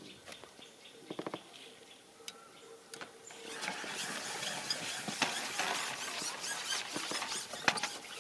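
Long carbon fishing pole being handled and pushed back out over its rests: a dense run of rattling and rubbing that starts about three and a half seconds in, after a quick burst of clicks about a second in.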